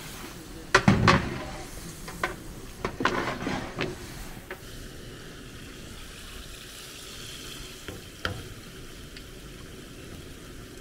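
Food frying and sizzling in a large cooking pot, with sharp knocks of stirring in the first few seconds, then a steady sizzle.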